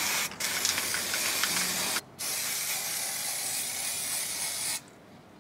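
Aerosol spray-paint can spraying: a steady hiss in three long bursts, with short breaks just after the start and at about two seconds, stopping shortly before the end.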